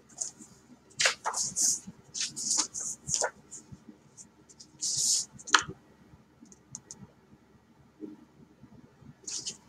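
Pages of a hardcover picture book being handled and turned: several short papery rustles and flicks with a few sharp clicks, the biggest a little past the middle.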